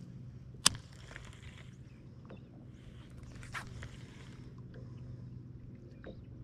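Baitcasting reel being cast: a single sharp click about half a second in, a short hiss of line paying out, and a smaller click a few seconds later. A steady low hum runs underneath.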